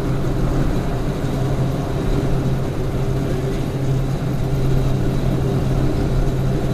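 Steady drone of a truck's engine and tyres cruising at motorway speed, heard from inside the cab, with a constant low hum that holds the same pitch throughout.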